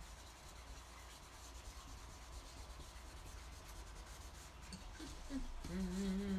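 Fingertips rubbing over drawing paper, blending a grey drawing, a soft steady friction sound. Near the end a person's voice hums one held note.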